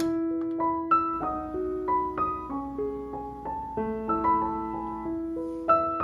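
Background piano music, single notes and chords struck one after another.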